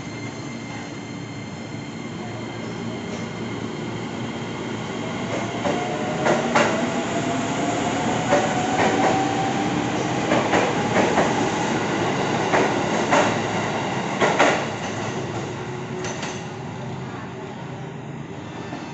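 Electric KRL commuter train pulling away and picking up speed: a rising motor whine, with the wheels clacking in quick pairs over rail joints. The sound fades after about sixteen seconds as the last cars clear.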